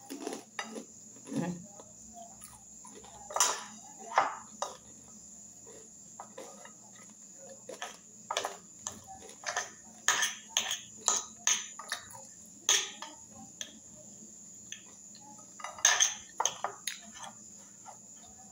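Metal fork clinking and scraping against a glass bowl in short, irregular clicks while someone eats, over a steady high-pitched drone.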